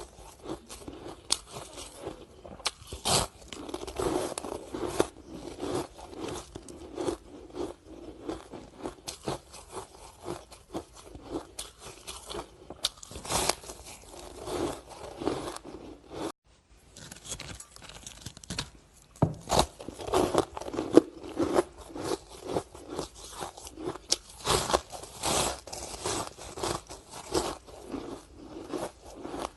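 Frozen ice sticks being bitten and chewed: a dense run of sharp cracking crunches, with a brief break about sixteen seconds in.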